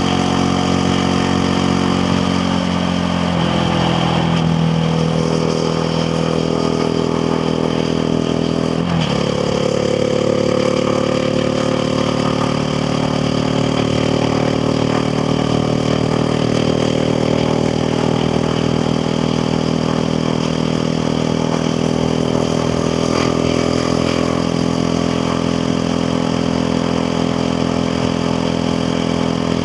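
KTM Duke 690R's single-cylinder engine running steadily while riding. About nine seconds in the pitch drops sharply with a gear change, then climbs slowly as the bike pulls.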